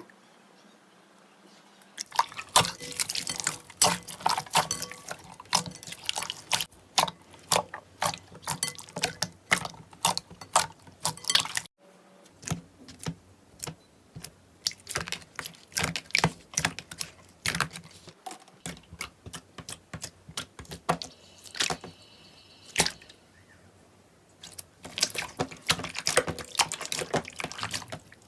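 Slime squeezed and worked by hand, making rapid wet clicks and pops. The popping is dense, then sparser after a sudden cut about twelve seconds in, and dense again near the end.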